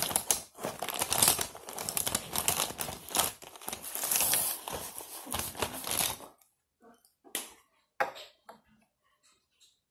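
Rustling and crinkling of drawing supplies being handled and rummaged through on a tabletop for about six seconds, then it goes quiet with a few light clicks as a marker is uncapped about eight seconds in.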